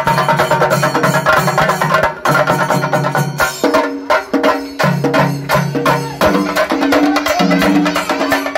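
Kerala melam: a troupe of chenda drums beaten with sticks in a fast, dense, driving rhythm. Under the drumming runs a low held tone that shifts pitch in steps.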